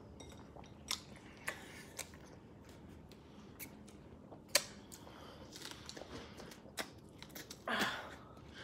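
Faint chewing and mouth clicks from people eating strawberries dipped in yellow mustard, with scattered sharp little clicks and a brief louder smack or breath near the end.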